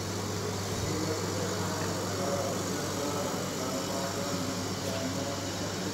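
Steady hum and hiss of dairy processing plant machinery running, such as pumps and motors, with a constant low drone and no change in level.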